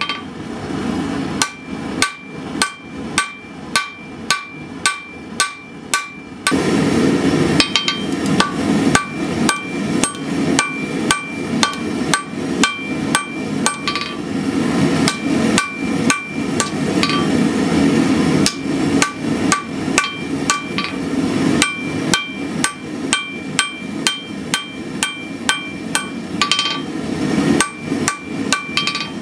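Hand hammer striking a glowing Damascus steel billet on an anvil, about two blows a second, each blow leaving a short metallic ring from the anvil. From about six seconds in, a steady low rushing noise runs under the hammering.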